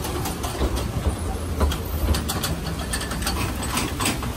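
Small Oigawa Railway Ikawa Line train rolling slowly into the station. A low rumble runs under many sharp, irregular clicks and clanks from the wheels and running gear.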